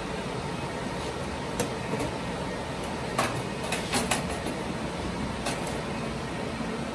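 Metal top cover of an HP rack server being unlatched and lifted off the chassis: a handful of sharp metallic clicks and clatters, the cluster around three to four seconds in the loudest, over a steady machine hum.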